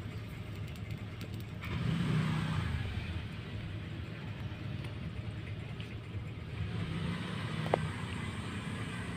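A steady low rumble that swells louder twice, about two seconds in and again around seven seconds in, with a brief click during the second swell.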